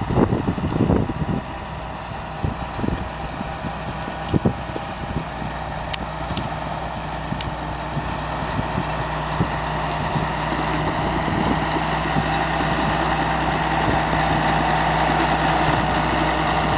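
Allis-Chalmers HD-11 crawler dozer's diesel engine running steadily as the machine crawls, with a few sharp clanks in the first five seconds. It grows gradually louder over the second half as the dozer comes closer.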